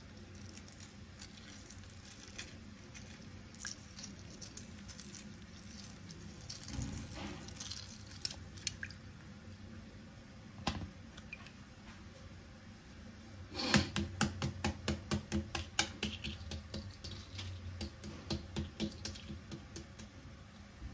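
Hard-boiled egg being peeled by hand over a saucepan of water: eggshell crackling and crinkling between the fingers, with scattered small clicks and drips, then a quick run of crackles about two-thirds of the way through.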